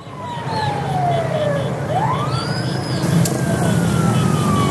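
An emergency-vehicle siren wailing over a low engine rumble. Its pitch falls slowly for about two seconds, sweeps back up, then falls slowly again.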